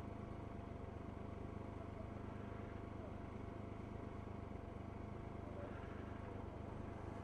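Motorcycle and surrounding traffic idling in a stopped queue: a steady low engine rumble with a faint steady whine above it.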